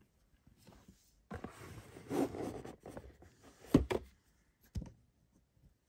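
A cardboard box being handled and turned on a wooden tabletop, its surfaces rubbing and scraping. There is a sharp knock a little under four seconds in and a lighter one about a second later.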